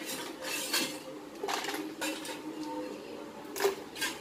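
Crushed ice and a spoon clinking and scraping in a stainless steel bowl as the ice is scooped out by hand, a handful of separate clinks with a louder clunk near the end.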